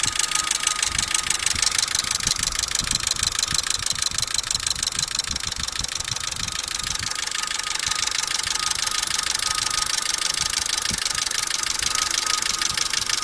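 Renault Fluence engine idling with a steady, fast rattle from a failing cam phaser (variable valve timing actuator), which the owner calls completely dead.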